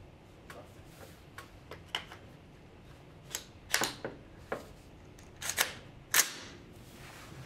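Schmeisser AR-15 rifle being made ready: a series of sharp metallic clicks and clacks as the magazine is seated and the action is worked, with the loudest clack about six seconds in.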